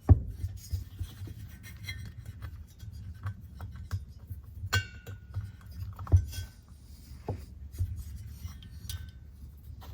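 Small metal valve parts clinking, tapping and rubbing as a valve is taken out of a motorcycle cylinder head, over a low steady hum. About halfway through one clink rings briefly, followed shortly by a sharper knock.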